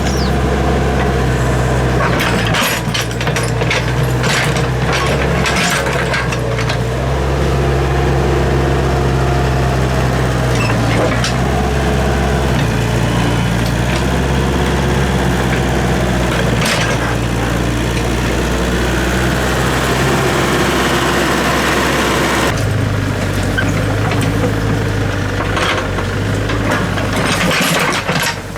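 Excavator's diesel engine running steadily, its note shifting a couple of times, with sharp metallic knocks and clanks clustered in the first quarter.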